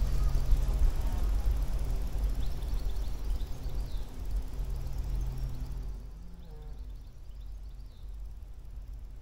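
Wind buffeting the microphone in open grassland, with faint bird chirps. The rumble drops away about six seconds in.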